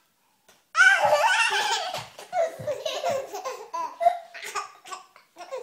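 Baby laughing hard: a long, loud belly laugh starting just under a second in, then a run of shorter laughs.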